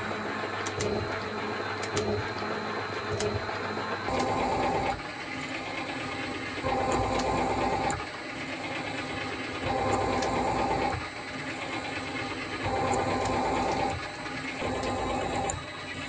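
Metal shaper cutting bar stock: the ram strokes back and forth. At first there is a light, quick clicking. From about four seconds in, a slower cycle sets in, with a louder, ringing cutting stroke about every three seconds and quieter returns between them.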